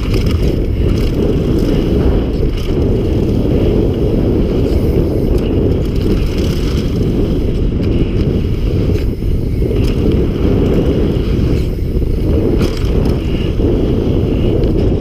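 Downhill mountain bike riding fast down a dirt trail: a loud, steady low rumble of wind buffeting the microphone and knobbly tyres on dirt, with occasional knocks and rattles from the bike over bumps.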